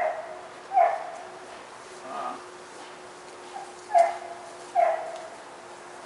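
A dog barking off in the distance, short barks coming in pairs about a second apart, over a faint steady hum.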